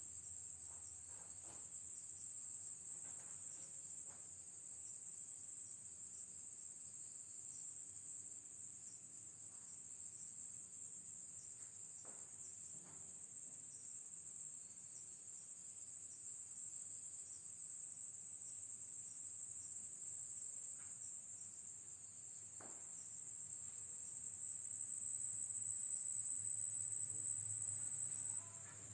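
Steady high-pitched chorus of crickets chirring, growing louder near the end and then dropping back suddenly, with a few faint knocks.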